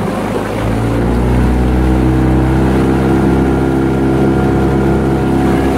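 Suzuki 15 hp four-stroke outboard being opened up to full throttle: its note rises over the first couple of seconds, then holds steady at full revs.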